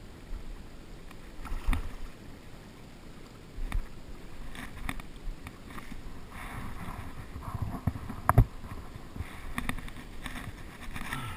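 Water sloshing and splashing around a wading fly angler as he handles the rod and line, with irregular rustles and knocks of jacket and gear; the loudest is a sharp knock about eight seconds in.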